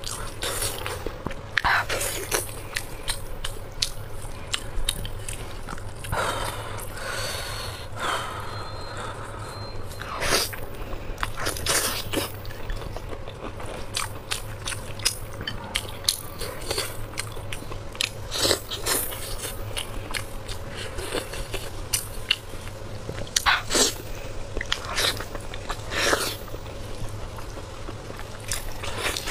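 Close-up eating sounds of spicy braised sheep's head: wet chewing and smacking with irregular sharp clicks and crunches, along with the squelch of meat being pulled apart by gloved hands.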